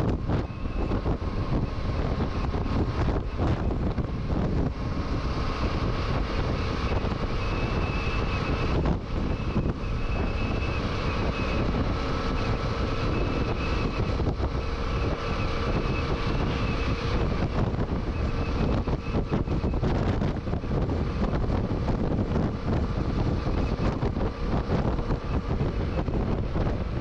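Strong crosswind buffeting the helmet-mounted microphone of a rider on a Yamaha Tracer 700 motorcycle at highway speed. The bike's parallel-twin engine and road noise run steadily underneath.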